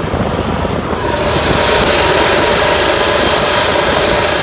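Gas engine of an E-Z-GO TXT golf cart running; about a second in it picks up speed under throttle and then runs steadily.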